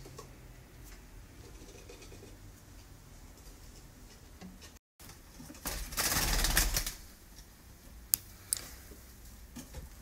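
Budgerigar aviary ambience: faint budgie chatter and small rustles, broken by a brief gap near the middle. This is followed by a loud rush of noise lasting about a second and then two sharp clicks.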